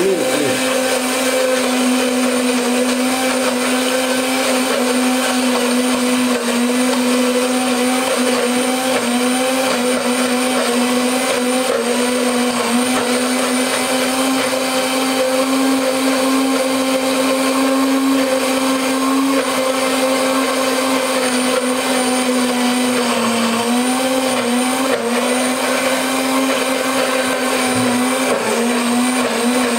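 Electric countertop blender running steadily, blending mint leaves and yogurt into mint chutney. Its motor hum holds one steady pitch, dipping briefly a couple of times in the second half as the thick mixture shifts in the jar.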